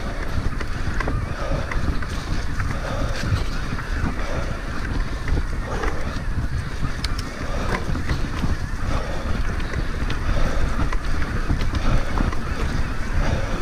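Wind buffeting a helmet-mounted action camera's microphone while riding an electric mountain bike on a trail: a steady low rumble with tyre noise and scattered small clicks and rattles.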